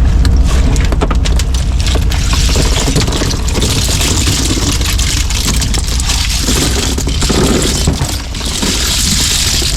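Small fishing boat's engine running with a steady low rumble while gill nets are hauled, with a rushing hiss over it for much of the time and scattered knocks.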